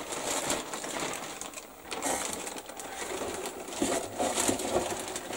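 Plastic kit bag crinkling and rustling as plastic model sprues are slid back into it.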